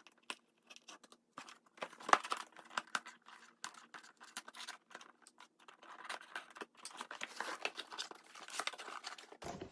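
Laptop box being opened by hand: cardboard and plastic packaging rustling and crinkling in a busy run of small clicks and scrapes.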